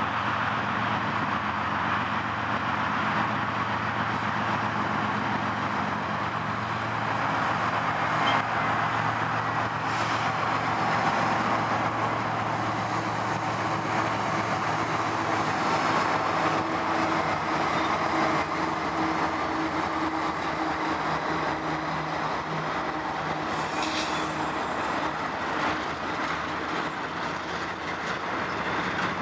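Canadian Pacific autorack freight train rolling past: a steady rumble of steel wheels on the rail. A thin high wheel squeal sets in near the end.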